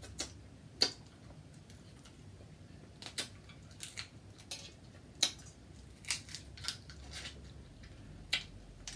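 Snow crab shell being broken open at the knuckles: a string of short, sharp cracks and snaps, about eight of them at irregular intervals, as the hard joints are worked apart.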